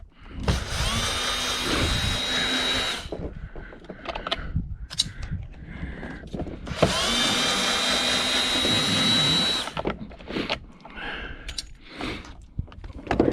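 Power drill backing out long screws from a dishwasher's casing: two runs of about three seconds each, the motor whine rising as it spins up and then holding steady, with clicks and clatter of handling between.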